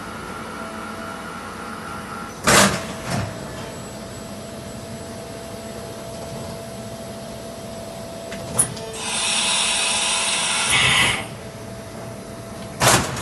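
Toyoda FA450II CNC horizontal machining center cycling: a steady machine hum broken by two sharp mechanical knocks, a click, a hiss lasting about two seconds, then two more knocks near the end.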